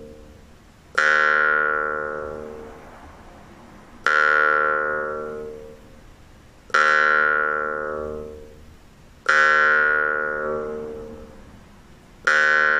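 Jaw harp played slowly in single plucks, five twangs about every two and a half to three seconds. Each twang starts sharply, rings with one bright high overtone standing out, and fades away over about two seconds.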